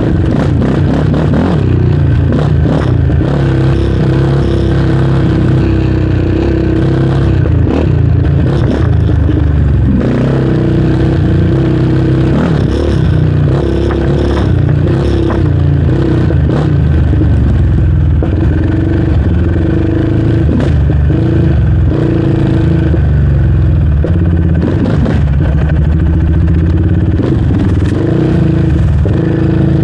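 Yamaha Raptor 700R's single-cylinder four-stroke engine running under way, its pitch rising and falling every few seconds as the throttle is worked, with scattered knocks and rattles from the quad over the rough trail.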